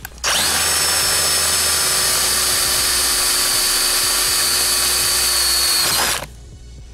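Electric power drill running at a steady speed for about six seconds, drilling a bolt hole through the seat bracket. It starts suddenly and stops sharply near the end.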